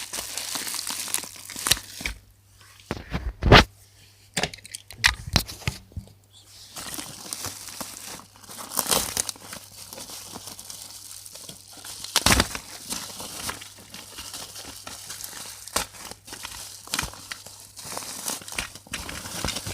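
Toy packaging being opened by hand: irregular crinkling and tearing, with a couple of sharp snaps, one a few seconds in and another about twelve seconds in.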